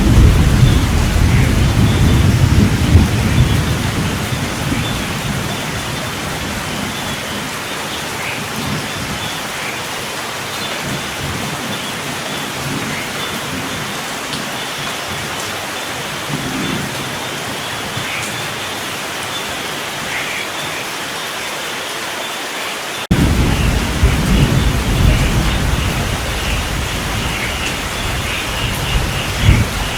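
Steady heavy rain with thunder rumbling. A roll of thunder dies away over the first few seconds, and a second loud rumble starts suddenly about 23 seconds in, then fades under the rain.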